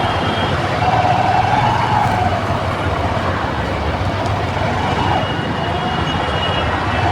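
An emergency vehicle's siren wailing slowly up and down over steady road traffic noise from a jam.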